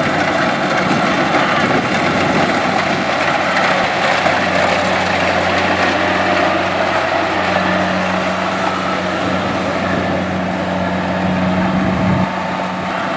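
Kubota DC-70X rice combine harvester's diesel engine running steadily under load with the machinery's mechanical clatter, its hum strengthening past the middle and easing off about twelve seconds in.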